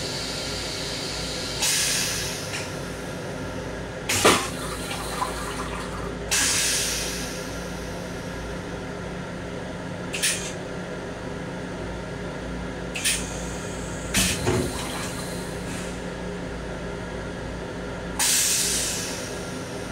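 Steady rumble and hum of a Long Island Rail Road M7 car in motion, heard inside its small restroom. About six short hissing bursts break in, each fading over a second or two, and there is a sharp clunk about four seconds in.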